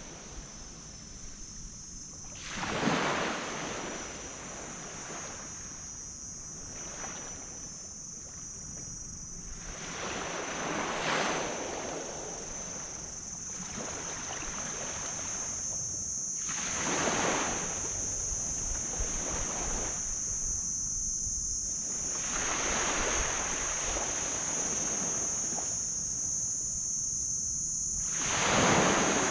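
Tropical sea waves breaking and washing up on a black sand beach, five surges about six seconds apart over a softer wash, with a steady high-pitched hiss underneath.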